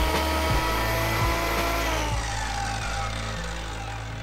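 Electric mitre saw motor running at speed, then switched off about halfway through and winding down with a falling whine, over background music with a steady beat.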